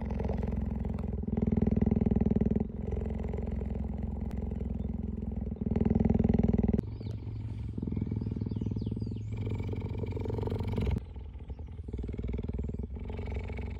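Cheetah purring right against the microphone: a steady, rapid low rumble that swells louder and softens every few seconds.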